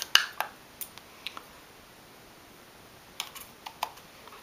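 A few light, sharp clicks and taps: a quick cluster at the start, a couple of single ones, and another short cluster about three seconds in.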